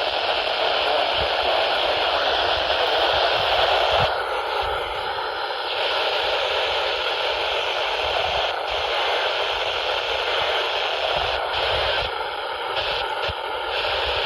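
Heavy radio static from a weak reception of an emergency alert broadcast. A faint signal shows through the hiss about four seconds in and again near the end.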